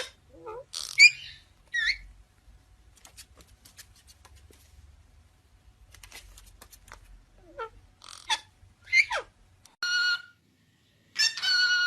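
Parrot chirping and whistling in short, quick pitch sweeps, mostly falling, with scattered light clicks between them. Two longer, harsher calls come near the end.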